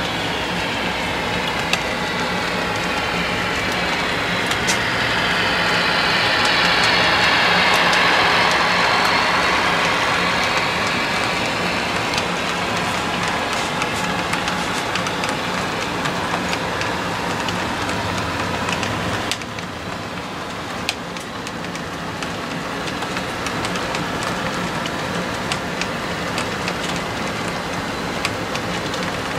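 HO-scale model train running past: Alco PA1 and PB1 diesel models pulling a string of mail and express cars. A steady running rumble swells as the locomotives go by and then eases off, with light clicks from the wheels of the passing cars on the track.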